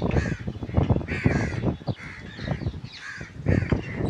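Crows cawing repeatedly, a string of harsh calls coming about once or twice a second.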